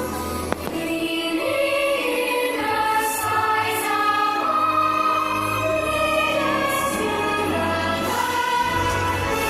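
Show soundtrack music with a choir singing sustained, shifting chords over orchestral backing, with one brief sharp click about half a second in.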